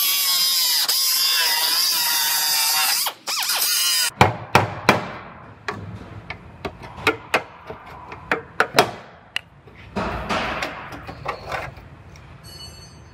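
Pneumatic cutoff tool whining at high speed as its disc trims the sheet-metal quarter panel along the seam line, its pitch sagging under load and recovering; it shuts off suddenly about four seconds in. After that comes a run of irregular sharp metal knocks and clanks.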